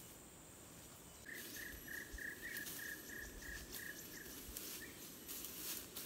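A chirping call of about ten short, evenly spaced notes at one pitch, starting just over a second in and lasting about three seconds, over a faint steady high insect drone. Brushing and rustling of undergrowth as a person walks through ferns.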